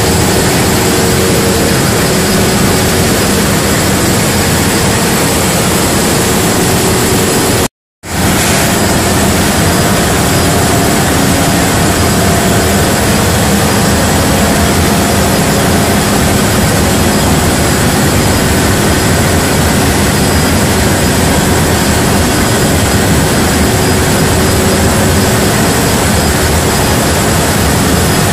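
Loud, steady running noise of diesel generator sets in a powerhouse, constant throughout, cutting out completely for a moment about eight seconds in.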